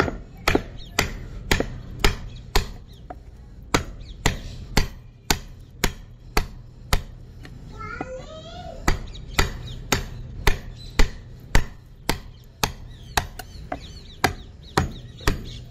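Repeated sharp blows driving a steel wood chisel into a board, about two a second, chopping chips out of a curved profile.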